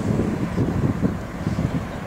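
Jet engines of a four-engine airliner climbing away after takeoff: a low, crackling rumble, with wind buffeting the microphone.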